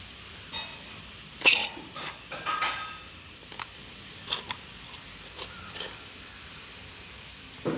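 Hands mixing and kneading flour dough in a stainless steel bowl: scattered short clicks and knocks against the bowl, the loudest about a second and a half in.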